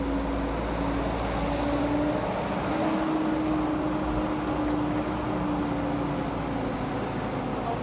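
Caterpillar E120B hydraulic excavator's diesel engine running under working load as the machine swings and digs: a steady engine hum whose pitch dips briefly about two seconds in, then picks up again.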